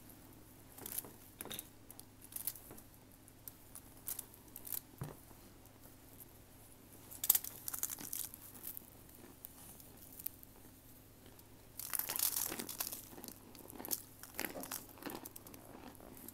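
Baked cornstarch chunks being crumbled by hand and crunched in the mouth: irregular dry, squeaky crunches and crackles, busiest about twelve seconds in.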